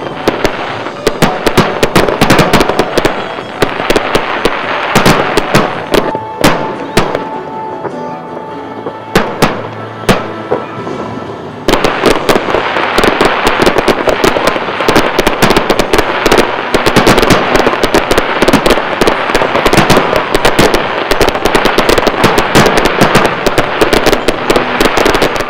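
Fireworks display: a dense, rapid run of bangs and crackling as shells and fountains go off in quick succession, becoming denser and louder about halfway through.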